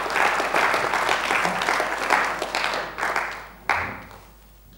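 Audience applauding, thinning out about three and a half seconds in, with a last few claps just before it stops.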